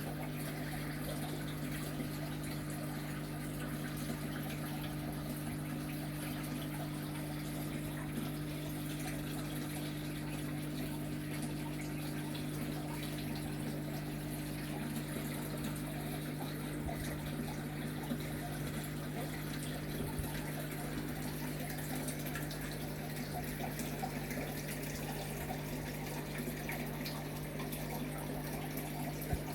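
A steady low hum over a constant rushing noise, unchanging throughout, with a few faint clicks.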